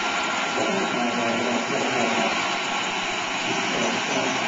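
Small gas-turbine engine of a radio-controlled jet helicopter running steadily: an even, loud rushing hiss with a thin high whine.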